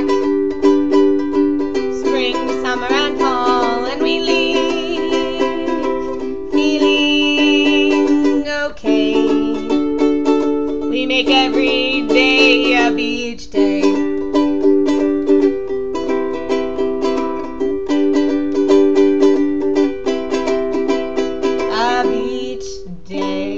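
Ukulele strummed in steady chords, with a singing voice over it in places. The playing thins and gets quieter near the end.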